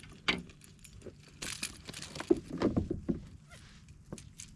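Irregular clatter of knocks and light metallic jingling while a freshly caught small snook is handled and the lure's hook is worked free, busiest in the middle.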